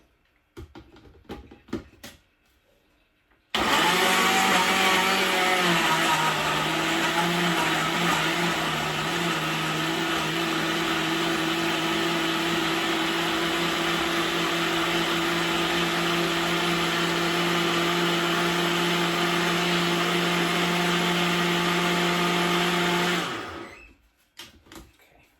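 Countertop blender switched on about three seconds in, running steadily for about twenty seconds as it purées fresh herbs and water into green seasoning, then switched off and winding down. A few light knocks come before it starts.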